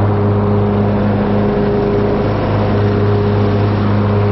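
Cub Cadet riding lawnmower's engine running steadily at an even pitch while mowing grass.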